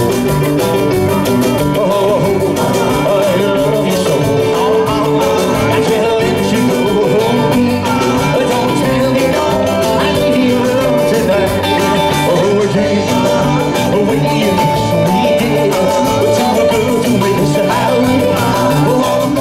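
Live rock and roll band playing, with electric guitars, drums and a man singing.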